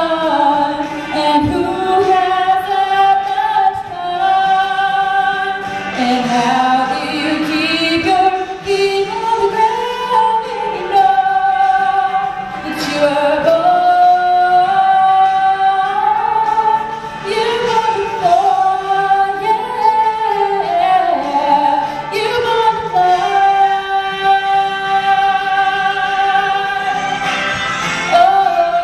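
A young woman singing solo into a microphone, her melody sliding between notes and holding some of them long.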